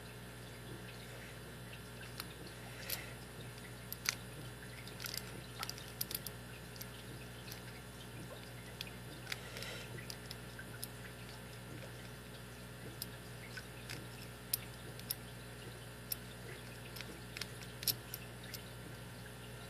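Lock pick and tension wrench working inside a small American Lock four-pin cabinet lock during single-pin picking: scattered light metallic clicks and scrapes at irregular intervals, over a steady low hum.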